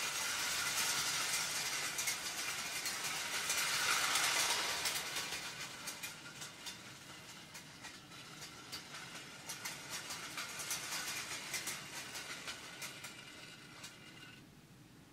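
Mettoy tinplate clockwork train running on tinplate track: the whirring clockwork motor and rattling wheels click over the rail joints. It gets quieter and stops about fourteen seconds in as the spring runs down.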